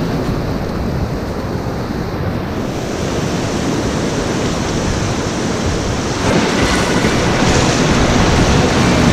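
Whitewater rushing through a creek rapid, heard from a kayak in the middle of it; the rush gets louder about six seconds in.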